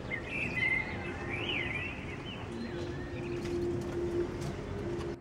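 Steady low drone of a jet aircraft flying low overhead, with a steady hum that grows stronger about halfway through. A small bird chirps over it in the first couple of seconds.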